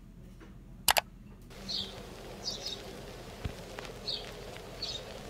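Two sharp clicks about a second in, then small birds chirping in short high notes every second or so over a faint steady background.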